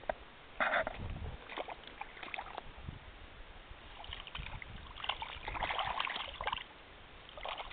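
Water splashing and sloshing around a keepnet full of live fish, in irregular bursts that are busiest in the second half.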